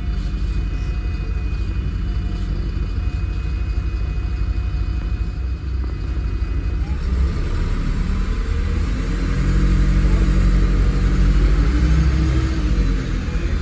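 Interior rumble of a 2009 MAN 16.240 bus's diesel engine and Voith automatic driveline, heard from the rear of the saloon while driving. Steady at first, then from about halfway through the engine note rises and grows louder as the bus pulls harder.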